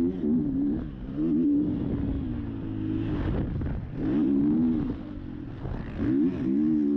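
KTM motocross bike's engine, heard from on board, revving up and dropping off as the rider opens and closes the throttle around the track. It falls away about a second in, again for a longer stretch from about two to four seconds, and once more around five seconds, then picks up hard near the end.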